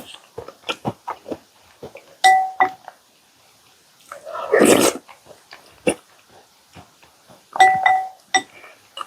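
Close-miked eating sounds of chocolate chip cookies soaked in milk being chewed: wet mouth clicks and smacks, with a few louder, longer bursts about two, four and a half, and seven and a half seconds in.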